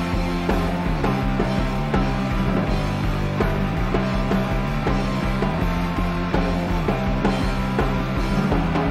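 A live rock band plays an instrumental passage with no vocals: electric guitar, electric bass and a drum kit keeping a steady beat.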